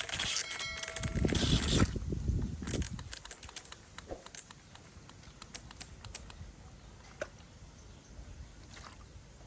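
Plastic toy guns being handled: a loud rustle for about the first two seconds, then scattered light clicks and taps.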